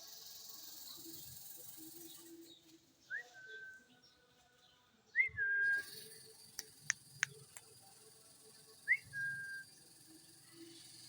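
A parrot whistling three times, several seconds apart, each whistle a quick upward chirp running into a short held note. A few sharp clicks come between the second and third whistles.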